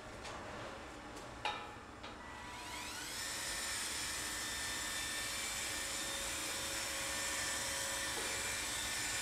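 A click about a second and a half in, then an electric sealant gun's motor whirs up with a rising whine and runs steadily as it drives sealant out of the cartridge.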